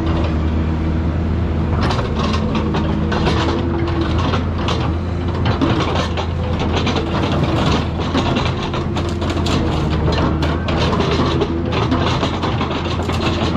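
Excavator's diesel engine running steadily under load, with irregular metallic crunching and clanking as it tears into a car body.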